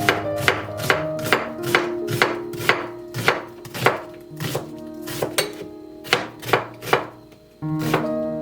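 Kitchen knife chopping food on a cutting board, steady strokes about two a second, over soft background music.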